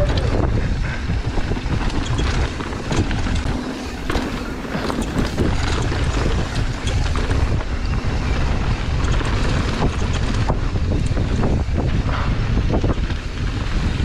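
Wind buffeting the microphone over the rumble of mountain bike tyres rolling fast on a dirt trail, with many small knocks and rattles from the bike over the rough ground.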